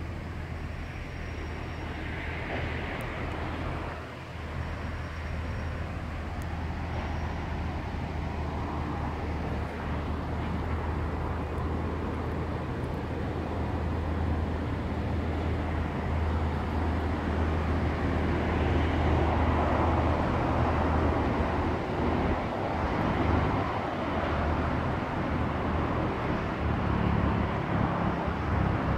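EMD G-16 diesel-electric locomotive's two-stroke V16 diesel engine running with a steady low drone, growing gradually louder over the stretch.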